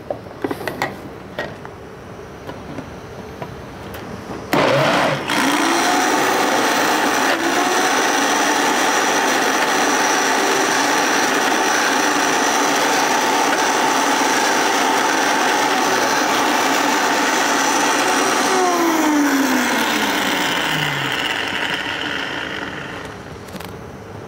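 Countertop blender starting up with a rising whine about four seconds in, running steadily at full speed while a tamper works a thick bean mixture, then slowing with a falling whine and fading near the end. It is grinding the beans to break up the last chunks into a smooth paste.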